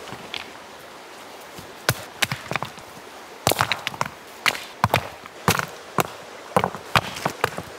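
Irregular sharp clacks and knocks of river stones being set against one another to build a fire ring. They start about two seconds in, over the steady rush of a stream.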